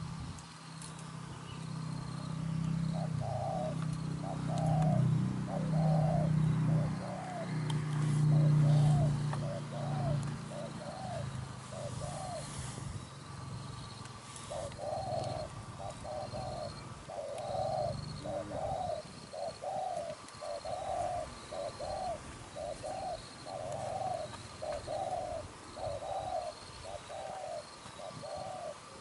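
Spotted doves cooing: a long run of short, evenly repeated coos at about three every two seconds, pausing briefly near the middle, over a deeper, louder hum in the first half. A faint steady insect buzz runs behind.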